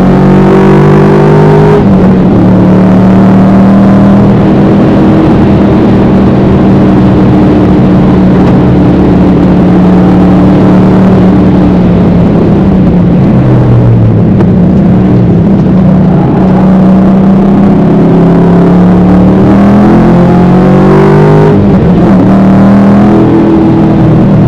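Holden VF Commodore's engine heard from inside the cabin, driven hard and revving through the gears. The pitch climbs, drops sharply at an upshift about two seconds in, holds and sags in the middle, climbs again and drops at another shift near the end.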